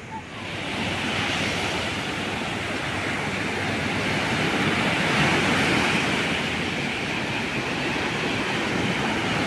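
Ocean surf breaking and washing up on a beach: a steady rushing hiss that swells up within the first second and then holds.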